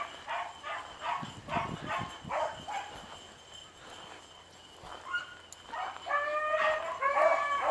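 Pack of beagles baying while running a rabbit: short barks about twice a second, easing off for a couple of seconds in the middle, then longer drawn-out bawls near the end.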